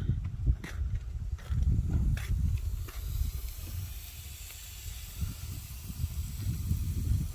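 Mountain valley stream running as a steady hiss that comes up about three seconds in, under an uneven low rumble on the microphone.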